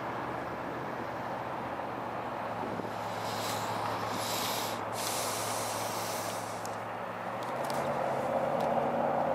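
Steady low hum of port machinery and the docked bulk carrier across the water. A hiss comes in about three seconds in and lasts roughly three seconds.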